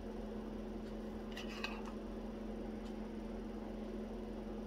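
Steady low room hum with a few faint clicks about a second and a half in, from handling a small amber glass candle jar and its lid.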